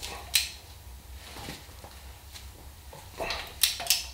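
Torque wrench on a Dana 44 knuckle's ball joint nut being pulled up toward 80 ft-lb: a sharp metallic click a little after the start, then a cluster of three clicks near the end, over a steady low hum.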